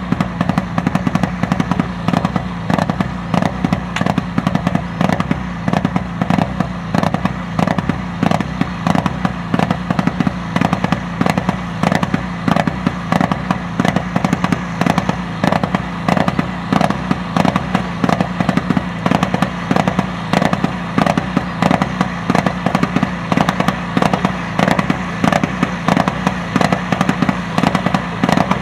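Mitsubishi Lancer Evolution rally car's turbocharged four-cylinder engine idling steadily while stationary, its exhaust popping and crackling rapidly and irregularly throughout.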